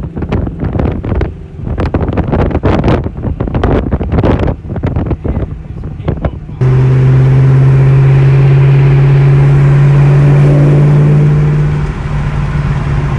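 Wind buffeting the microphone through an open car window. About six and a half seconds in, the 2004 Mustang SVT Cobra's supercharged 4.6-litre V8 comes in loud with a steady, deep drone under load, easing off shortly before the end.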